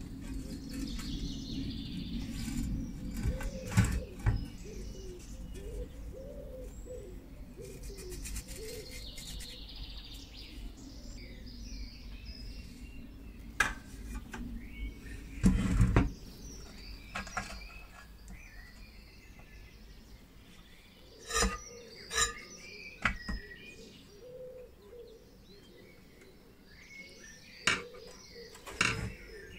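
Birds chirping in the background, with scattered clicks and knocks of hands working on the steel case and terminal block of an old battery charger. The loudest knock comes about 16 seconds in, and several sharper clicks follow near the end.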